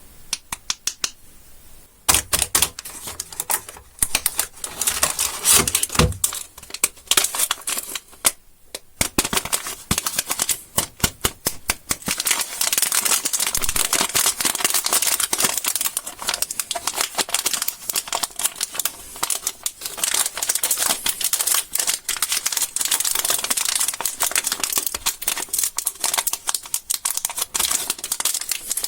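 Candy wrappers being crinkled and handled, a dense run of rapid crackling clicks that starts about two seconds in and keeps going.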